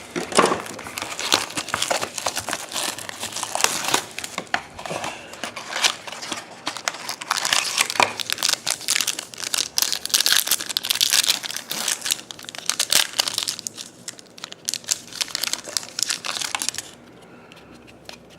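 Plastic and foil trading-card packaging being torn open and crinkled by hand: a dense run of crackling and crumpling that stops about a second before the end.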